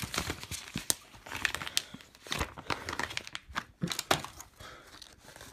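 Plastic DVD case being broken and twisted apart by hand: irregular crackling and snapping, busiest in the first couple of seconds and thinning out toward the end.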